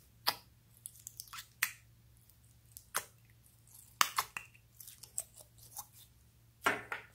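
Clear glitter slime squishing and popping with small wet clicks and crackles as it is worked in and drawn out of a clear plastic tub, with a longer squelch near the end.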